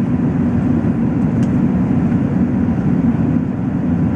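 Steady low rumble of jet aircraft engines, unchanging in level.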